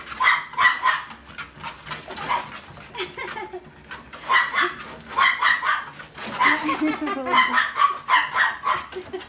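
Pugs barking: rapid short barks in several bursts.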